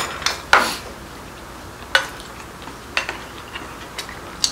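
Chopsticks and a spoon clinking against bowls and dishes while eating, about six short separate clinks, the loudest two in the first second.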